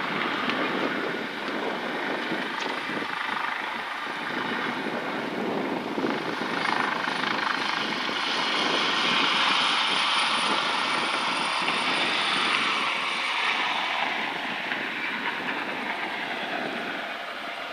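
Helicopter in flight, its rotor and engine making a steady rushing noise that swells louder through the middle and eases off near the end, with a thin high whine held throughout.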